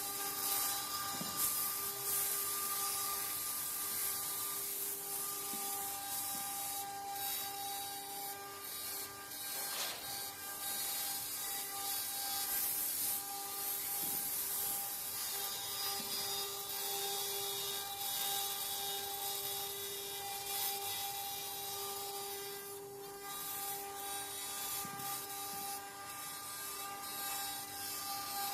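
CNC wood-carving router at work: a steady whine from the spindle over the continuous hiss of the bit cutting wood.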